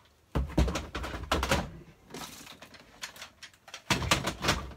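Plastic Nerf blasters clattering and knocking against each other and the cardboard of a shipping box as they are packed in. The knocks come in quick clusters, loudest about half a second in and again near the end, with some scraping of cardboard between.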